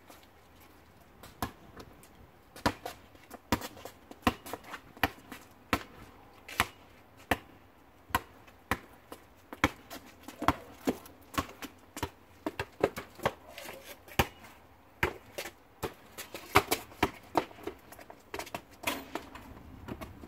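Basketball dribbled hard on an asphalt driveway: a run of sharp bounces, about two a second, coming quicker and closer together in the second half.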